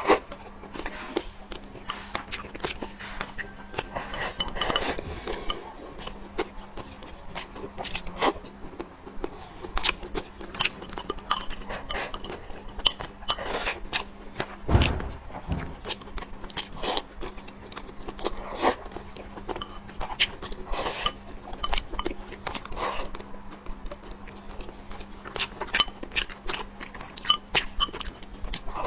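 Close-miked eating: chewing and biting, with many short sharp clicks of utensils on dishes. A faint steady low hum runs underneath, and there is one louder low thump about halfway through.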